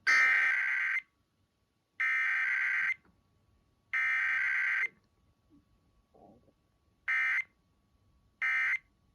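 EAS SAME digital data bursts of an automatic Required Weekly Test: three buzzy, screechy header bursts about a second long and a second apart, then, about seven seconds in, shorter end-of-message bursts a little over a second apart, with no voice message between.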